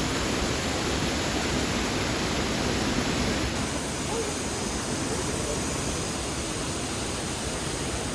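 Waterfall's rushing water: a steady, even roar of falling water.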